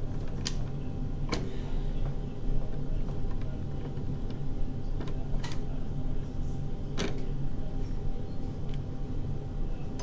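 A few sharp clicks and taps from handling the fan's wires and plastic twist-on wire nuts, over a steady low hum.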